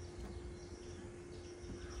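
Faint outdoor ambience: a bird gives short, high chirps over and over, about twice a second, above a faint steady hum.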